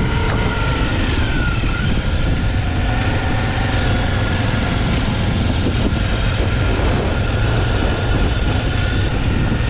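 Quad bike engine running steadily while being ridden over sand dunes, mixed with heavy wind rumble on the microphone. A faint steady whine sits over it, and there are a few brief clicks.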